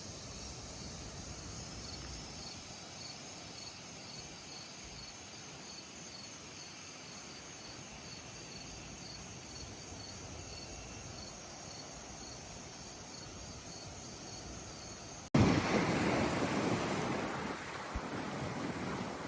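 Insects chirping in a steady high pulse, about two chirps a second, over a faint hiss. About fifteen seconds in, an abrupt cut brings in much louder wind buffeting the microphone and waves breaking on the bay shore.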